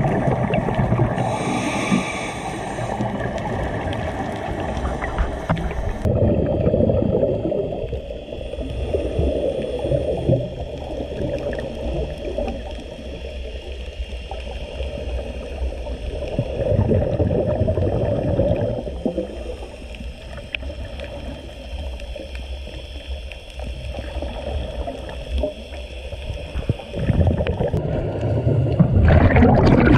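Underwater sound of scuba diving: a muffled low rush and gurgle of regulator breathing and exhaled bubbles, swelling and fading irregularly with the breaths.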